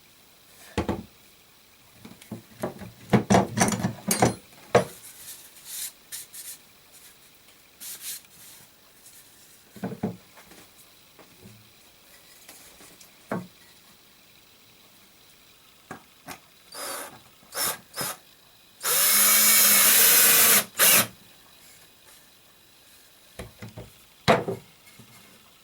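Wooden pieces being handled and knocked, with scattered taps and clicks, then a power tool runs in one steady burst of about two seconds about three-quarters of the way through.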